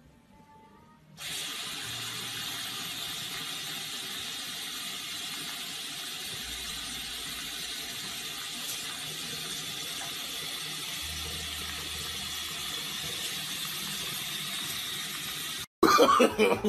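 Bathroom sink faucet running in a steady stream into the basin. It starts suddenly about a second in and stops abruptly near the end, where a voice follows.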